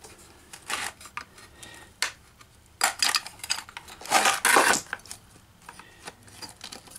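Screwdriver and pliers clinking and scraping against the back plate and metal tabs of an electric cooling-fan motor as it is pried open: scattered sharp clicks, with a longer scrape about four seconds in.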